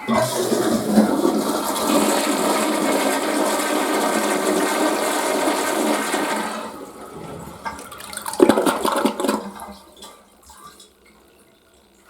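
Toilet flushing: a loud rush of water starts at once, holds steady for about six and a half seconds, then dies down, with a short second surge of water about eight and a half seconds in.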